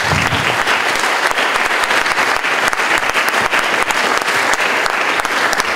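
Audience in a hall applauding, many people clapping steadily.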